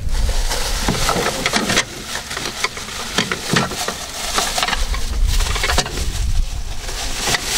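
Plastic carrier bags crinkling and rustling in quick, irregular crackles as they are handled, over a low rumble of wind on the microphone.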